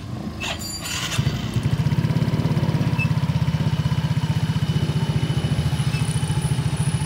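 Yamaha Mio Soul i scooter's single-cylinder engine starting about a second in, then idling with a steady rapid putter, the CVT drive spinning with its cover off.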